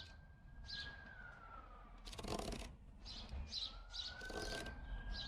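Marking knife scoring a line into wood along a hinge outline: two short scraping strokes, about 2 s and 4 s in. Birds chirp throughout, and a long high wavering tone rises slightly then falls away, twice.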